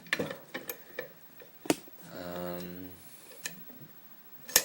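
Sharp metal clicks and taps as disc locks and lock-picking tools are handled, about five separate clicks. A brief low steady hum comes in around the middle.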